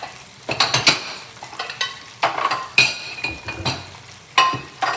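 Dishes and utensils clattering: a run of knocks and clinks, a couple of them ringing briefly, over the sizzle of shrimp deep-frying in oil.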